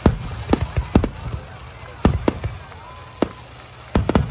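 Aerial firework shells bursting overhead: about ten sharp bangs, bunched in quick runs near the start, around two seconds in and near the end.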